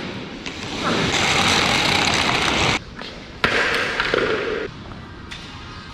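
Heavy bundle of electrical power cables dragged by hand across a concrete floor, a steady scraping rush in two stretches that start and stop abruptly, the second shorter, then fainter.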